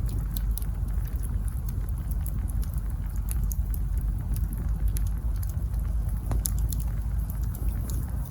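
Wood campfire burning: many small, irregular crackles and pops from the burning logs over a steady low rumble.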